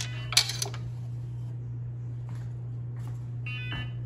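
A portable clothes dryer's control panel gives a short electronic beep near the end, over a steady low hum. About half a second in there is a sharp knock with a rustle, as clothes are handled at the drum.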